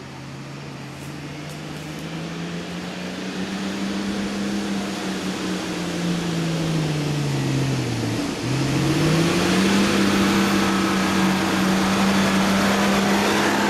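Off-road 4x4 engine working under load, growing steadily louder as it comes closer. Its pitch climbs, drops sharply about eight seconds in with a brief dip in level, then climbs again and holds high.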